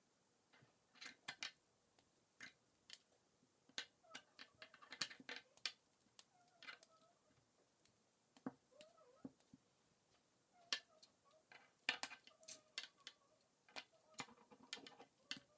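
Plastic K'NEX rods and connectors clicking and snapping together as they are fitted by hand, in faint, irregular clicks.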